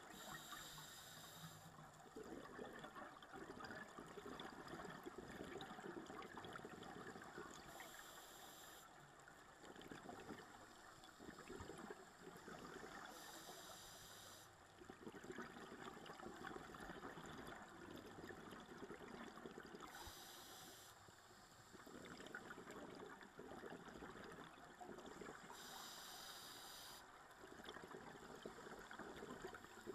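Scuba diver breathing through a regulator, heard underwater: a short high hiss about every six seconds, with bubbling and gurgling from exhaled air in between.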